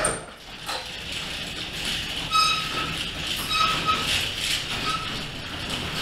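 Garage door opening, running with a steady rattling rumble and a few short squeals, the first about two and a half seconds in.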